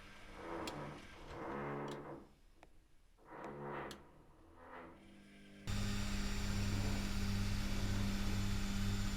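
Privileg Classic 30612 washing machine during a 95°C boil wash: the drum motor whines in short swells that rise and fall as the drum tumbles. About six seconds in, a loud steady electrical hum with a low buzz cuts in abruptly.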